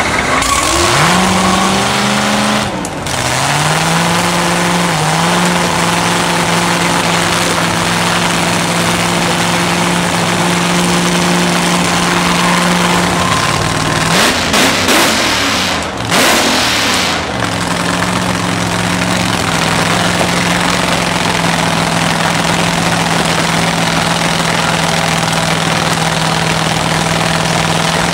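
Top Doorslammer drag car's V8 engine fires up about a second in and settles into a loud, steady fast idle as it is warmed up. The revs waver briefly a few seconds in and again around the middle, then hold steady.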